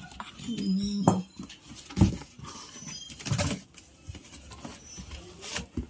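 Knocks and clatter of a mixer grinder's jars and parts being handled: about five separate knocks, the loudest about two seconds in.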